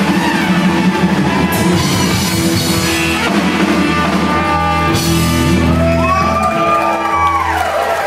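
Live Tex-Mex rock band playing the closing bars of a song: electric guitars, button accordion, trumpet, keyboard and drum kit, with cymbal crashes about a second and a half in and again about five seconds in. From the second crash the band holds a final chord, with sliding notes over it near the end.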